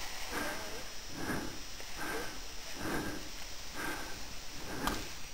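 Heavy, rhythmic breathing of a climber working up a steep snow slope, about one breath a second.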